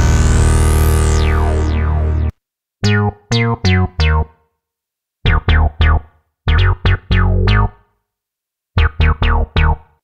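Cherry Audio Quadra software synthesizer playing factory presets: a held, bright chord with a filter sweeping up and down, cut off about two seconds in, then the Elastic Bass preset playing short plucky bass notes whose bright attack closes quickly, in four quick runs of three or four notes with silences between.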